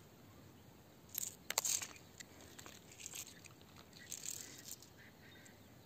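Small clear crystals knocking and scraping together in a hand: a few short runs of crackly clicks, starting about a second in, loudest just after, with more near three and four seconds.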